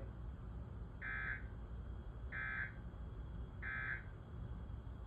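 Three short bursts of Emergency Alert System end-of-message data tones (the SAME 'NNNN' digital code), each a brief electronic screech, evenly spaced about a second and a third apart. They mark the end of the flash flood warning message.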